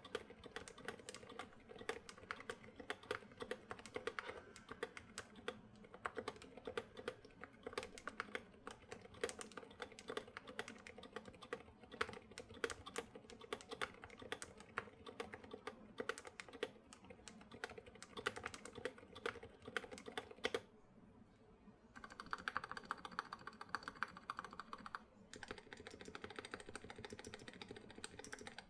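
Fast, steady typing on a custom KBD67 Lite mechanical keyboard with SA keycaps, soft key clicks in quick succession. The typing stops for about a second about three quarters of the way in, then picks up again.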